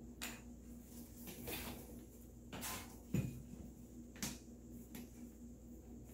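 Faint handling sounds from a beach umbrella as it is folded and its aluminium pole is gripped and adjusted: a series of light clicks and knocks with some rustling, the clearest about three seconds in and another a second later.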